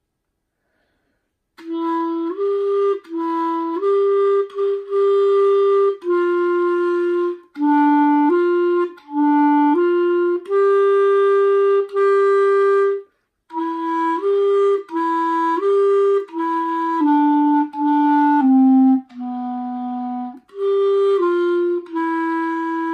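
Solo clarinet playing a slow melody of separate and held notes, starting about a second and a half in, with one short break for breath about halfway through.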